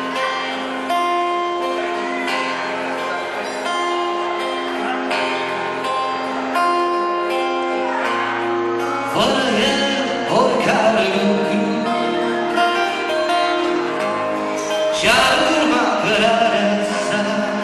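Acoustic guitar played steadily with held, ringing notes; about nine seconds in a man's singing voice joins over it, in two phrases.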